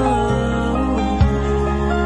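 Music only: a slow, gentle song between sung lines, with held tones over a deep bass note that is struck again a little over a second in.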